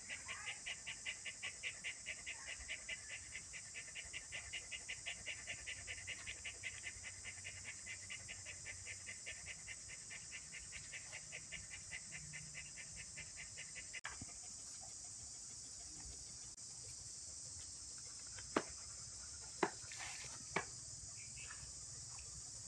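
Insects chirping and buzzing: a steady high drone with a rhythmic chirp of about four to five a second, which stops suddenly a little past the middle. Later come three sharp clicks or taps, louder than the insects.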